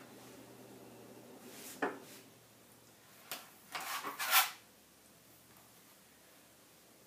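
A quilted shawl being shifted and smoothed by hand across a cutting mat: a short rustle just under two seconds in, then a cluster of brief scraping and rubbing sounds a little later, the last one the loudest.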